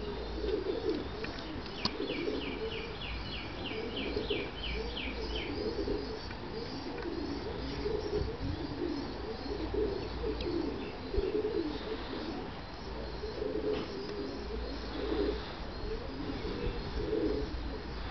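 Pigeons cooing over and over. A small bird adds a quick run of about a dozen chirps, each dropping in pitch, starting about two seconds in.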